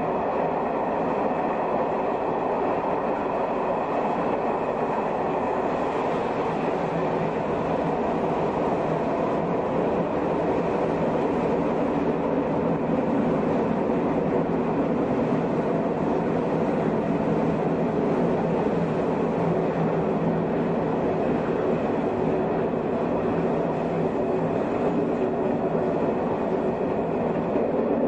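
Shin-Keisei 200-series electric train with nose-suspended (tsurikake) traction motors running at a steady speed: an even wheel rumble under a steady motor and gear hum that holds its pitch.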